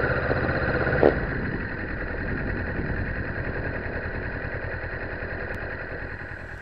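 Kawasaki Ninja motorcycle engine running at low speed, with a short sharp click about a second in. The sound fades gradually toward the end.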